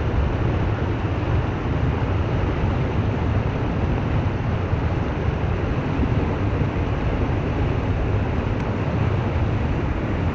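Water rushing steadily: a constant, even roar with no breaks, heaviest in the low end.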